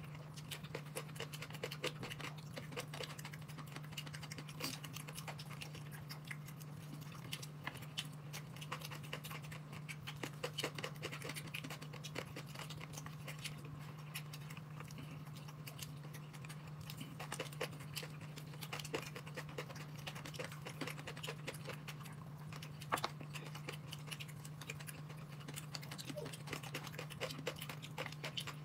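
Dense small clicks, taps and scratches of food being eaten and handled, with a steady low hum underneath.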